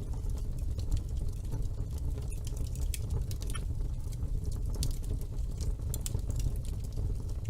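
Wood fire burning in a fireplace: a steady low rush of burning with irregular sharp crackles and pops.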